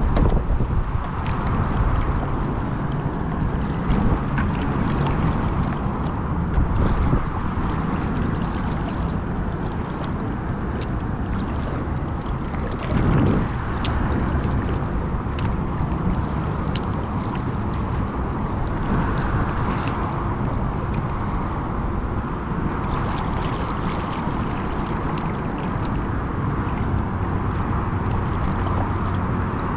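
Water splashing and gurgling against a kayak, with short drips and splashes scattered throughout and a brief louder swell about halfway through. Under it runs a steady low rumble of wind on the action camera's microphone.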